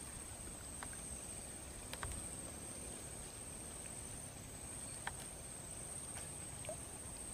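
Insects singing in a steady high-pitched drone, with a few faint clicks.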